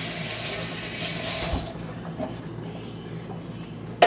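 Running water that stops about a second and a half in, followed by a quieter stretch and a sharp knock at the very end.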